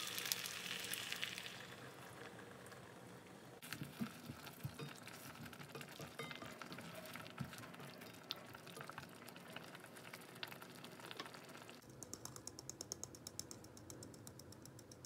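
Fresh cream poured into a hot pan of sliced potatoes and bacon, its sizzle fading over the first few seconds. A spoon then stirs the simmering cream and potatoes with small clicks and scrapes against the pan. Near the end comes a fast run of light ticks as chopped cheese is dropped onto the potatoes in a baking dish.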